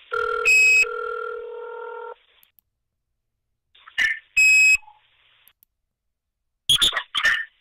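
Odd electronic noises over a mobile phone line, recorded on a voicemail. There is a steady tone for about two seconds with a sharp high beep in it, another high beep about four and a half seconds in, and short garbled bursts near the end. The uploader suspects these noises come from line tapping.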